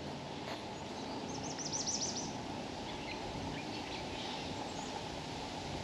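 A songbird giving a quick series of about eight high chirps lasting about a second, starting about a second in, with a fainter call near the four-second mark, over steady outdoor background noise.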